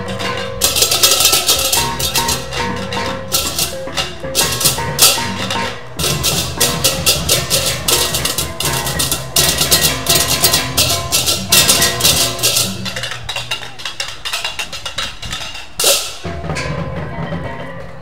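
Balinese gamelan beleganjur ensemble playing: rapid interlocking clashes of cengceng cymbals over drums and pitched gong notes. The cymbal crashes thin out about three-quarters of the way through, a single loud accent lands near the end, and the playing is quieter after it.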